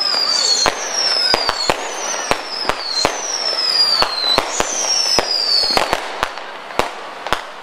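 Fireworks display: a rapid, irregular string of sharp bangs from bursting shells. A series of falling whistles, about one a second, runs over the bangs and stops about six seconds in.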